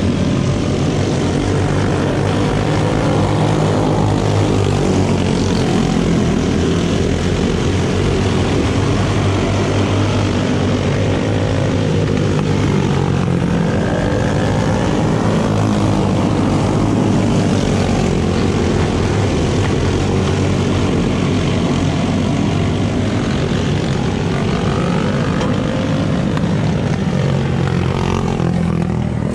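A pack of racing lawn tractors' small engines running hard, a continuous buzzing drone whose pitch rises and falls as the tractors go through the turn and down the straight.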